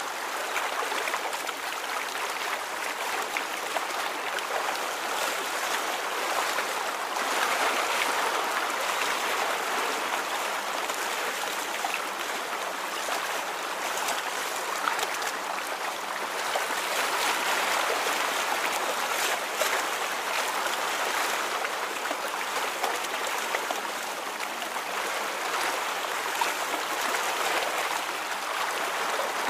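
Water rippling and flowing: a steady watery rush that swells gently twice.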